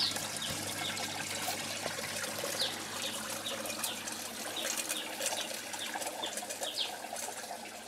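Small birds chirping: many short, falling chirps repeating irregularly, starting a couple of seconds in, over a faint steady trickle of water from the hydroponic system.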